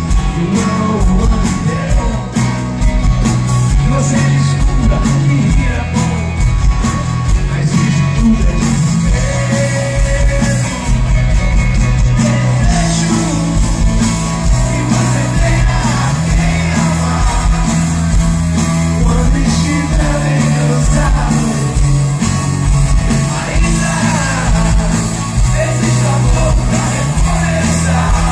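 Live rock band playing, with singing over electric guitars, bass and drums.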